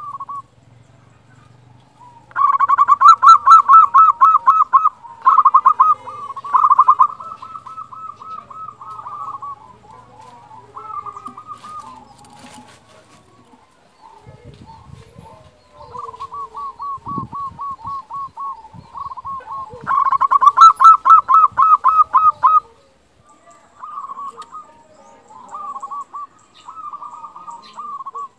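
Zebra dove (perkutut) singing: runs of rapid, rolling cooing notes, loudest in a burst a couple of seconds in and again about two-thirds of the way through, with softer runs between.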